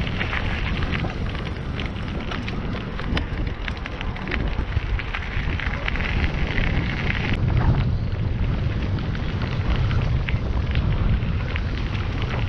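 Wind buffeting the microphone of a camera riding on a moving bicycle, with a steady fine crackle of the tyres rolling over the rough path surface.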